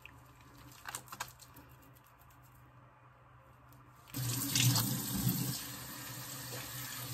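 A bathroom tap is turned on about four seconds in, and water runs into the sink to rinse off foaming face wash. Before that there are only a few faint clicks.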